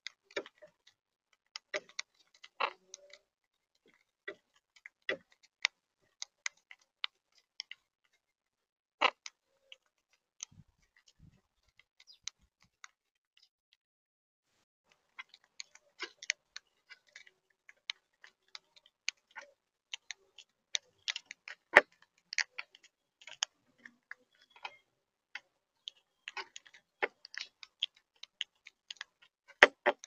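Monk parakeets cracking seeds and knocking their beaks and feet against a plastic seed feeder tray: irregular sharp clicks and taps, thinning out for a few seconds in the middle, with a couple of louder knocks later on.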